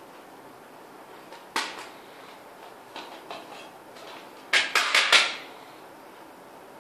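A plastic double CD jewel case being handled. It gives one sharp click, a few light ticks, then a quick run of four loud plastic clacks as the cover booklet is worked out of the case.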